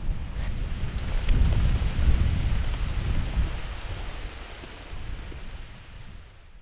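River water rushing over a sloped concrete drop in a channel into churning white water, a steady rushing noise with a heavy low rumble. It swells about a second in, then eases and fades out near the end.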